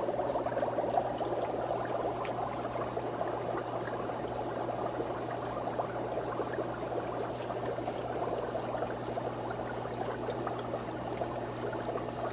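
Air-driven aquarium filters bubbling steadily in guppy tanks: a constant fizzing, gurgling wash of rising air bubbles, over a steady low hum.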